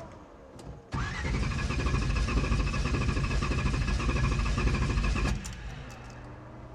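1969 pace car's engine being cranked by the starter for about four and a half seconds, turning over steadily with a starter whine but never firing, then stopping. It cranks without catching because the ignition has no spark, traced to a failed distributor drive gear.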